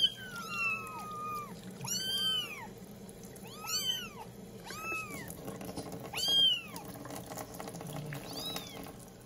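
Young kittens meowing repeatedly while being bathed, about eight high-pitched calls that each rise and fall in pitch, the first one long and sliding downward.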